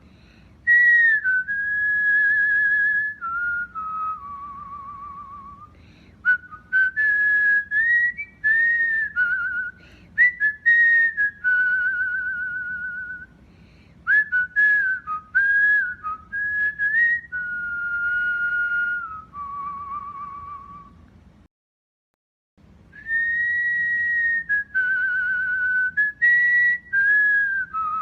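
Cockatiel whistling its song: a string of clear whistled notes, some held with a fast warble and some gliding up or down. There is a brief dead stop a little past two-thirds of the way through, then the whistling resumes.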